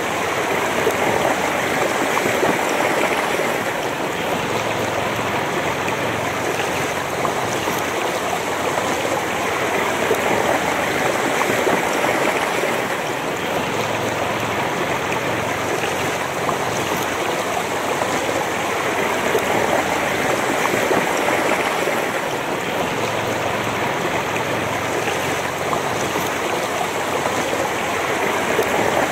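Shallow river running over rocks and pebbles: a steady rush of flowing water.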